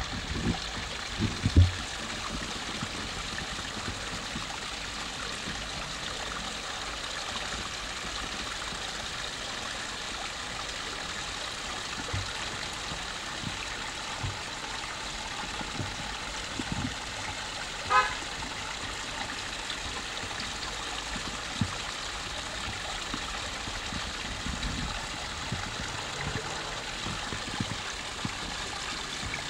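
Water trickling steadily over the stones of a small garden rockery cascade, a constant hiss. A brief horn-like toot sounds about two thirds of the way in, and there are a few low bumps near the start.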